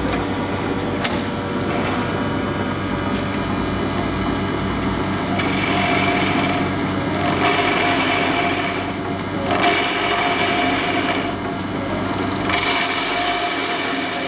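Union Graduate wood lathe running steadily while a gouge cuts into the centre of a spinning spalted beech bowl blank. The cutting noise starts about five seconds in and comes in four passes of a second or two each.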